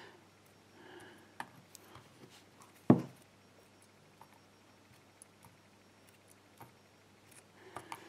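Faint small clicks of metal tweezers handling tiny padlock pin springs and setting them into a plastic pin tray, with one sharper click about three seconds in.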